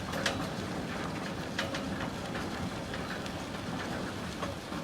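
Small utility vehicle driving slowly with its motor running steadily, with scattered light clicks and rattles.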